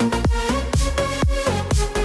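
Background electronic dance music with a steady kick-drum beat about twice a second under held synth notes.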